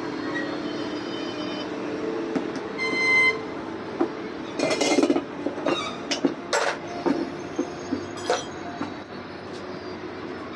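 Tools clinking and knocking on metal during tyre puncture repair: a run of sharp knocks and clinks over a steady background hum, with a short high beep about three seconds in.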